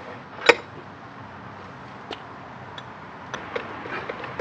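Hand-tool work at a motorcycle's front wheel and brake caliper: one sharp knock about half a second in, then a few light scattered clicks and ticks over a steady background hiss.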